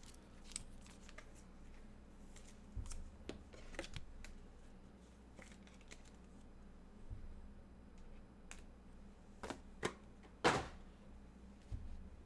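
Scattered faint clicks and rustles of small objects being handled on a desk, the loudest a few sharp ticks about ten seconds in, over a faint low steady hum.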